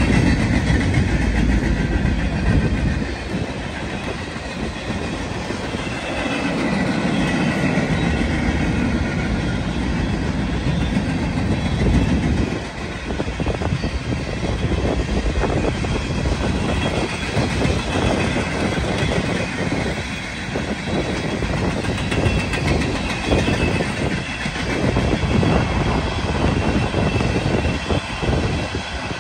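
Freight train cars rolling past close by, first refrigerated boxcars and then tank cars: a steady rumble of steel wheels on the rails, broken by repeated clicks as the wheels run over rail joints.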